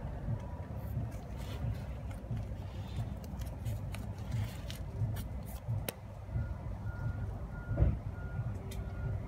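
A vehicle engine runs with a low rumble. About two-thirds of the way in, a reversing alarm starts beeping about twice a second. Light clicks and rustles of handling are heard over it.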